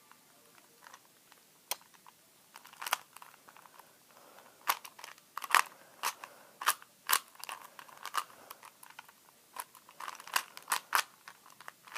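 Plastic Rubik's cube being turned by hand: a dozen or so sharp, irregular clicks and clacks as its layers are twisted.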